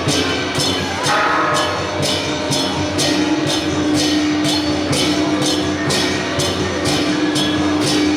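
Temple procession band playing: percussion crashes on a steady beat about twice a second, over held pitched tones.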